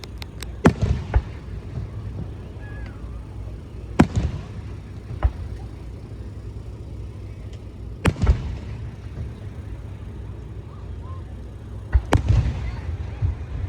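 Aerial fireworks shells bursting, a loud bang roughly every four seconds, each followed by a short echoing rumble and a smaller pop or two. Near the end several bangs come close together.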